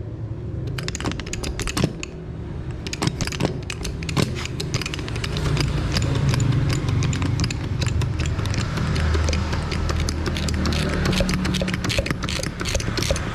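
Heavy wire rope cutter being worked to shear a 10 mm steel wire rope: a rapid, irregular run of metallic clicks and ticks as the blade is driven into the rope, growing busier in the second half, over a steady low hum.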